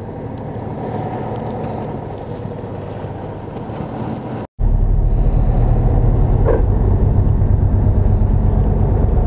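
Boat engine running steadily, with wind and water noise. About four and a half seconds in, the sound cuts out for a moment, then comes back louder and lower.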